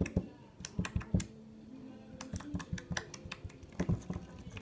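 Slime being poked and squished with a finger, giving a run of small irregular clicks and pops that thin out for a moment just before the middle, then pick up again.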